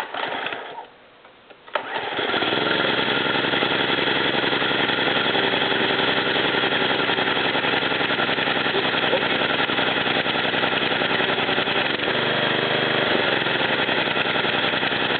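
John Deere JX85 self-propelled mower's engine cold-starting after sitting almost a month. It catches about two seconds in and runs on steadily, its note shifting slightly near the end.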